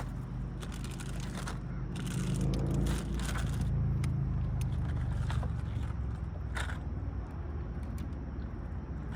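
Scattered clicks and scrapes of pliers working a hook free from a small bass's mouth, over a steady low hum.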